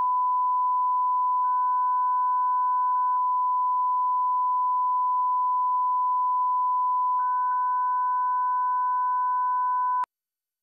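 Steady line-up test tone played over colour bars. A fainter, slightly higher second tone joins it twice. The tone cuts off abruptly about ten seconds in.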